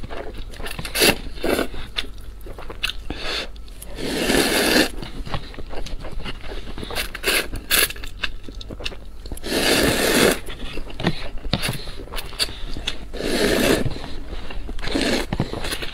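Instant noodles slurped from a paper cup with chopsticks: about four long slurps of roughly a second each, with close-up chewing and mouth clicks between them.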